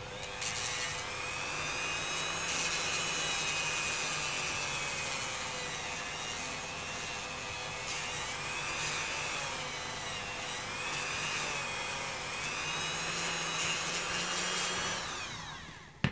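Dremel rotary tool with a cut-off wheel running at high speed, grinding into a small part held in the fingers. Its whine dips and rises as the wheel bites. Near the end the motor is switched off and winds down.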